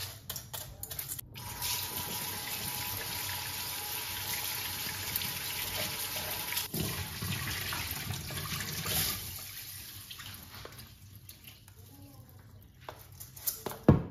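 Water rushing and splashing into a stainless steel sink as the rinse water from washed sushi rice is poured off through a mesh strainer; the steady rush fades after about nine seconds. Near the end there is one sharp knock.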